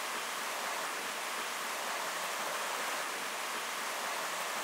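Shallow, fast-flowing stream rushing over a stony bed, a steady, even rush of water.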